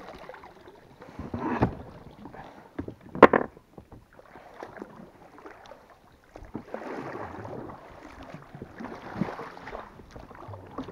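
Water splashing and lapping against the side of a small boat, with scattered knocks and thumps of gear being handled in the boat; the loudest is a sharp knock a little over three seconds in, and a longer wash of water noise rises about six and a half seconds in.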